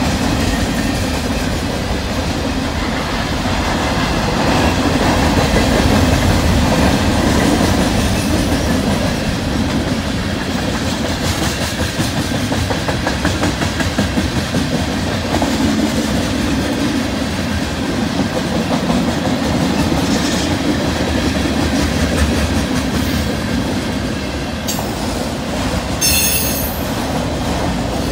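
Freight cars of a long mixed freight train rolling past at about 40 mph: a steady rumble of wheels on rail with clickety-clack over the joints. Near the end comes a brief, high-pitched wheel squeal.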